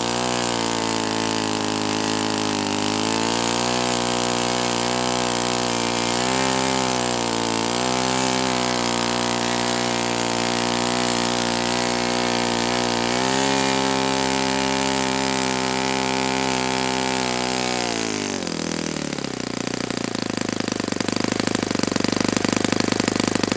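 Saito FA-72a four-stroke glow engine running fast on a test stand, its speed dipping and recovering a few times. About eighteen seconds in, the speed drops sharply and it runs on as a rough, rapid low-speed pulsing. The owner suspects the engine is not liking the heat.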